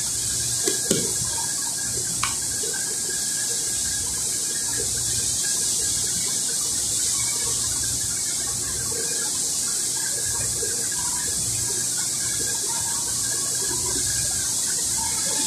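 Steady high-pitched hiss throughout, over a low hum, with a few light metallic clicks about one and two seconds in.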